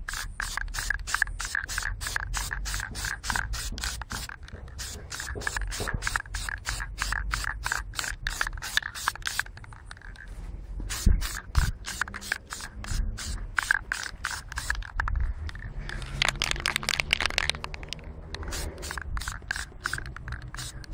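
Krylon aerosol spray paint can spraying, heard as a rapid, even pulsing of about four to five a second, with a low rumble underneath.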